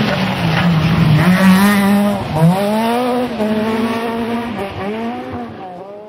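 Rally car engine revving hard through a stage, its pitch climbing and dropping again and again with gear changes and lifts, growing fainter near the end.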